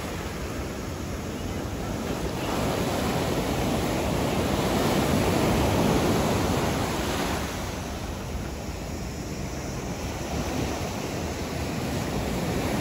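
Sea surf breaking over rocks and washing up onto a sandy beach. The wash swells louder in the middle, eases off, then builds again near the end.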